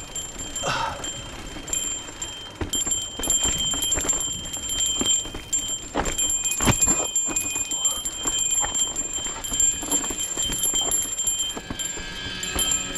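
Mountain bike rattling down a rocky downhill trail: irregular clicks and knocks, heaviest about six to seven seconds in.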